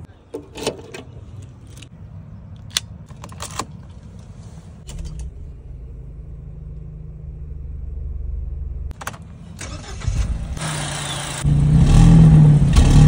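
A few sharp clicks and knocks as the Mahindra Thar's rear glass hatch is opened, then a low hum, then the engine starts about ten seconds in and runs loudly, heard close to the exhaust.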